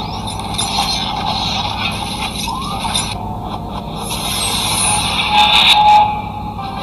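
Whooshing, hissing sound effects of an animated logo intro, growing to their loudest about five to six seconds in with a few sharp clicks, over a steady low hum.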